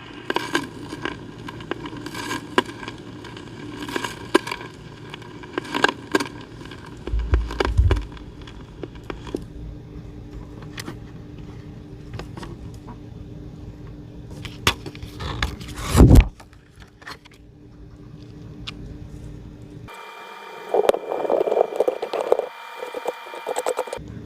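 Record playback between spoken tracks: scattered crackling clicks and pops, a heavy thump about sixteen seconds in, then steady tones with a brief muffled burst near the end.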